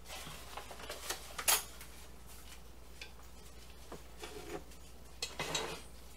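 Spoon clinking and scraping against a mixing bowl while stirring a sticky batter: a few scattered clinks, the loudest about a second and a half in, and a short cluster of scrapes and clinks near the end.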